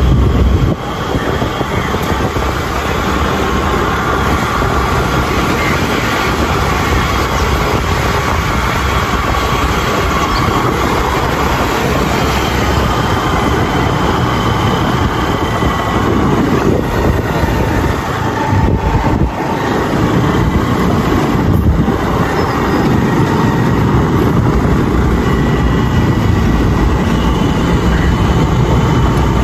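Steady noise of a small vehicle engine running while moving along, mixed with wind on the microphone.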